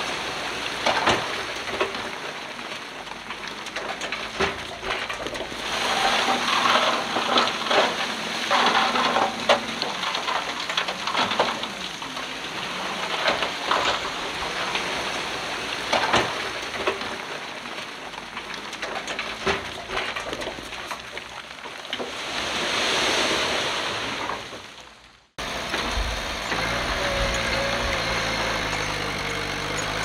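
A steady hiss with scattered clicks and knocks swells about 22 seconds in and then fades out. After a brief break, the heavy diesel engine of earthmoving machinery runs with a low, steady hum.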